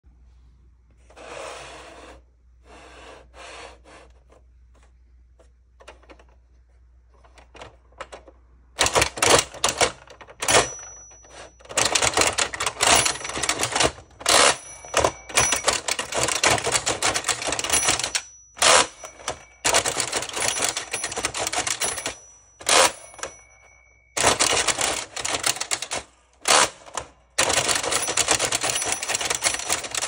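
Tomy Tutor Typer plastic toy typewriter being typed on. It is soft for the first several seconds, then from about nine seconds in come fast runs of clattering keystrokes broken by short pauses, with a few brief ringing tones among them.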